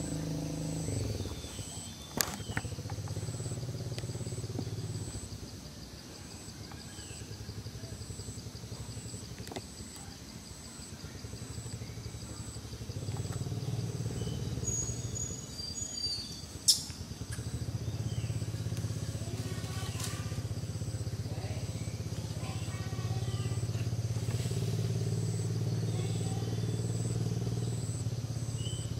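Low hum of a motor vehicle engine, swelling and fading in level, with a faint, evenly pulsing high tone throughout. Two sharp clicks stand out, about two seconds in and just past the middle.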